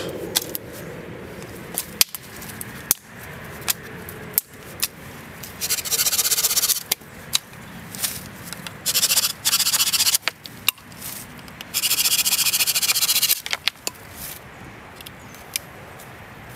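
Ray Mears axe blade scraping down a long stick to strip it, in three long scraping passes in the second half, with sharp knocks of the axe striking the wood in between.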